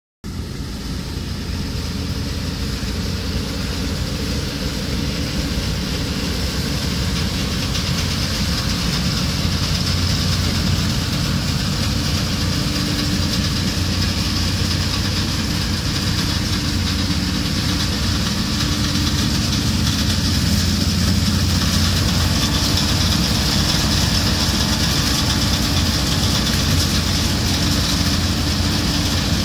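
Sambo Rosenlew 410 combine harvester working in standing grain, its engine and threshing machinery running in a steady drone that grows slowly louder as it comes closer.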